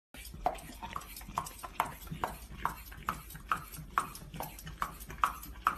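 Dog crunching a raw carrot, chewing in a steady rhythm of about two crunches a second.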